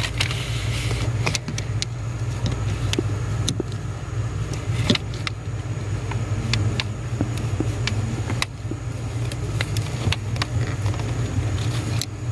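Scattered small metal clicks and taps from pliers working the lock pin out of the brake pedal's push-rod clevis, over a steady low hum.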